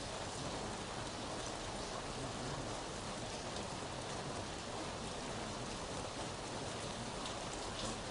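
Steady rain: an even hiss with a few faint drop ticks scattered through it.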